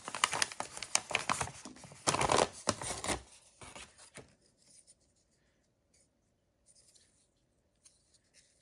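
Paper crinkling and rustling as a folded paper instruction sheet is unwrapped from around a knife kit, busy for about three seconds, then a few brief rustles and faint handling.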